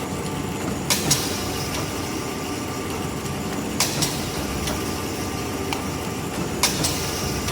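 Sugiyama twin-spindle drilling machine running with a steady motor and blower hum, with a pair of sharp clacks about every three seconds as the machine cycles.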